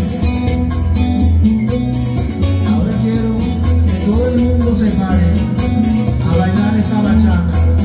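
Bachata music: plucked guitar melody over a steady, pulsing bass beat, with fast even percussion ticks several times a second.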